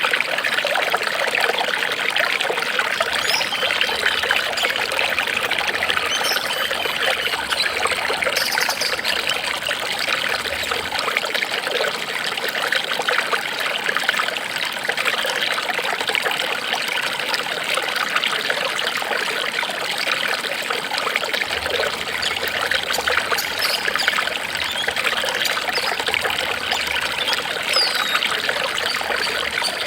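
Flowing water trickling steadily and without a break.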